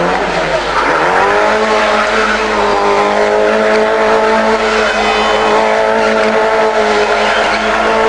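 Mitsubishi Lancer WRC rally car's turbocharged four-cylinder engine held at high revs while the car spins donuts, its tyres spinning and skidding on the tarmac. The revs dip and climb back in the first second, then hold nearly steady.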